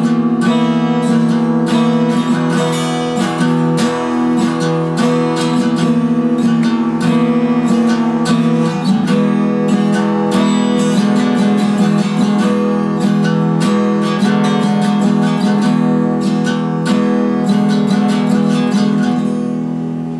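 Cutaway acoustic guitar strummed in a quick, steady rhythm over repeated chords, a riff that sounds kind of eerie and tribal. Near the end the strumming stops and the last chord rings out and fades.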